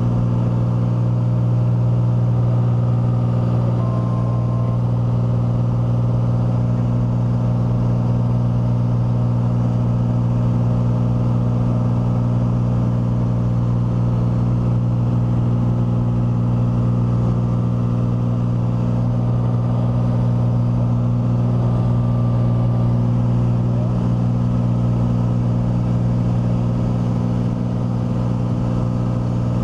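Single-engine light plane's engine and propeller droning steadily in flight, heard inside the cockpit.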